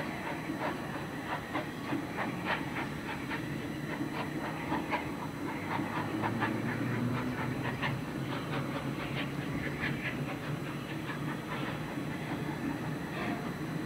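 Diesel shunter's engine running low and steady as the locomotive creeps over the points, with irregular sharp metallic clicks and clanks of the wheels on the rails.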